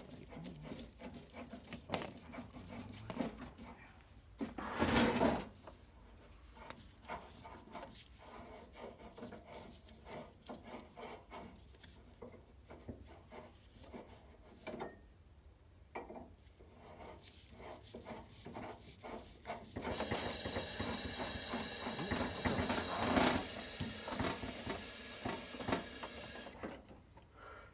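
Handling noises of a Coleman camp grill on a wooden picnic table: rubbing, scraping and small clicks as it is shifted and its knobs worked. There is a louder noisy burst about five seconds in, and a longer, louder noisy stretch from about twenty seconds in.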